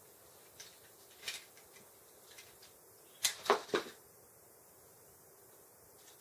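An ice fishing rod and reel being handled: a few light clicks and taps, then three louder sharp knocks or swishes in quick succession about three and a half seconds in.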